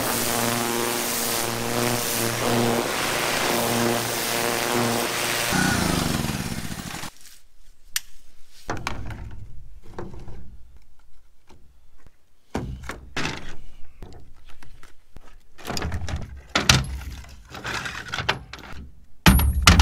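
Pressure washer running, its spray hissing on a steel diamond-plate truck bed, until it stops about six seconds in. After that, a scattering of knocks and clunks as tools are handled and set down on the steel bed.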